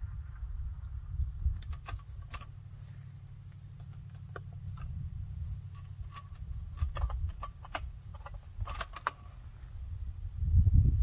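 Scattered light metallic clicks and rattles of a rifle and gear being handled at the shooting position, with a cluster of clicks near the end, over a low steady rumble and a louder low bump at the very end.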